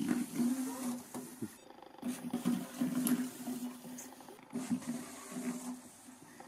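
Small electric gear motors of mini sumo robots whirring in short spurts as they drive and shove each other, with a few light knocks.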